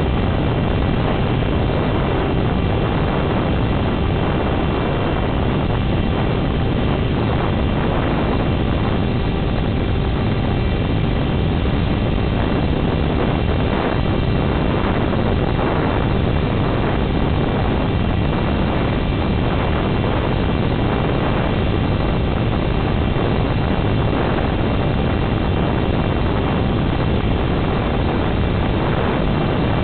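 Steady rushing noise of wind and the electric motor and propeller of a Dynam HawkSky RC plane in powered flight, heard from on board.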